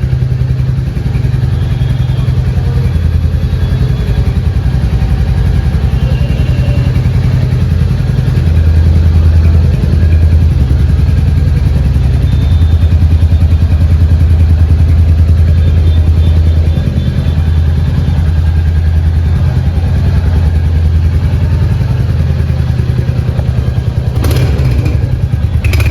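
Royal Enfield Hunter 350's single-cylinder engine idling through a loud aftermarket exhaust: a steady, deep, even thumping that swells slightly in the middle.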